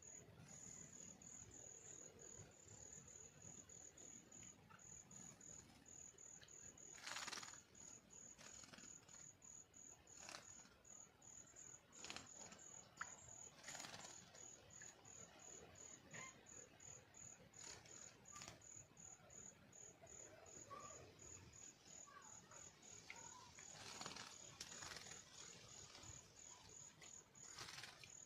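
Faint insect chirping: a high-pitched pulse repeating evenly, about two to three times a second, with a few short, sharp noises scattered among it.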